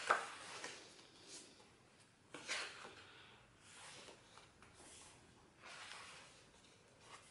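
Pages of a photobook being turned by hand, a series of short papery swishes and flaps from thick matte pages, the loudest right at the start.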